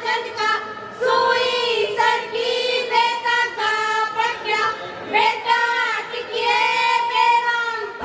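A group of young women singing a Haryanvi engagement (sagai) folk song together into microphones, in long held high-pitched phrases with short breaks between them.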